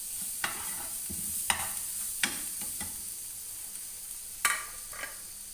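Onions with ginger-garlic paste and spices sizzling in oil in a frying pan, with a spatula scraping and knocking against the pan about once a second. The loudest knock comes about four and a half seconds in.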